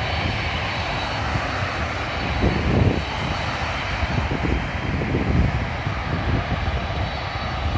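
Jet airliner engines running at the airfield: a steady noise with a faint high whine, surging unevenly in the low range.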